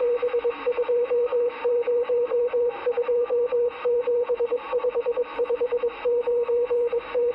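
Morse code (CW) received on a CB radio: a single tone keyed rapidly on and off in dots and dashes, sent fast, over a bed of receiver hiss.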